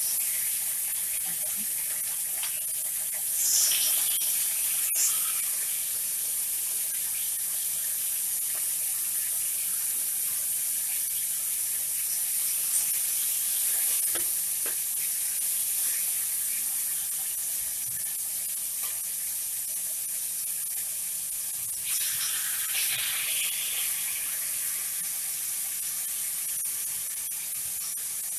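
Marinated pork chop slices sizzling as they fry in a cast-iron pan on medium heat, a steady hiss that swells louder about three seconds in and again about twenty-two seconds in. A sharp click sounds about five seconds in.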